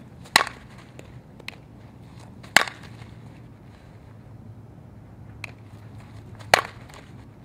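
A fastpitch softball bat striking the ball on slap swings: three sharp, ringing cracks, the first right away, then about two seconds later, then about four seconds after that, with a few faint clicks between.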